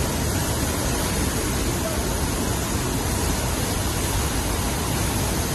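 Water rushing over the lip of a waterfall: a loud, steady, even rush with no pitch or rhythm, cut off suddenly near the end.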